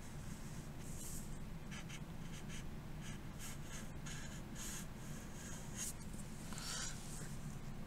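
Faint scratching of a felt-tip marker drawn across paper in a series of short, slow strokes as a shape is outlined, the longest stroke near the end, over a low steady room hum.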